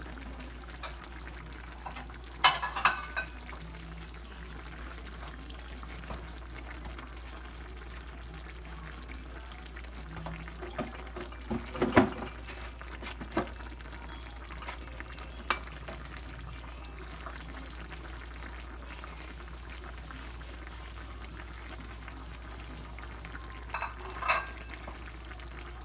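Tomato-sauce chicken stew simmering in a frying pan, a steady low cooking noise with a constant hum under it. A few sharp clinks and knocks stand out, the loudest about twelve seconds in.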